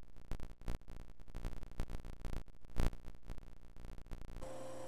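Irregular handling noise: fabric rustling and soft low bumps as a quilted cloth is moved about on a machine-embroidery hat clamp, with one louder bump just under three seconds in. A steady electrical hum cuts in abruptly near the end.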